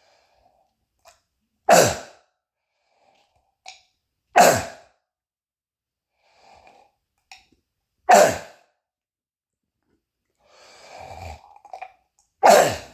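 Four loud, short coughs of a man with a croup cough and bronchitis, each dropping in pitch, with quieter breaths between them.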